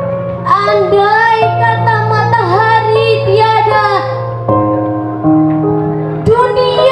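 Slow backing music of held, sustained chords, with a female voice singing a phrase from about half a second in until about four seconds, then coming in again near the end.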